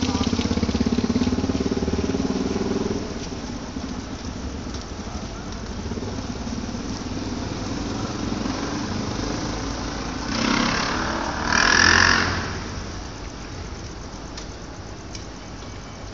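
An engine running steadily, loudest for the first three seconds, with a louder rushing noise rising and falling about ten to twelve seconds in.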